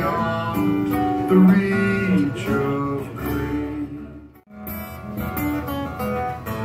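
Solo acoustic guitar played live, an instrumental passage of picked and strummed notes, with no singing. The sound drops out briefly about four and a half seconds in, then the guitar resumes.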